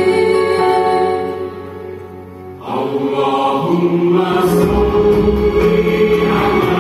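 Live symphony orchestra, strings to the fore, playing held chords with singing over them. The music thins and grows quieter about two seconds in, then swells back, with low strings coming in near the end.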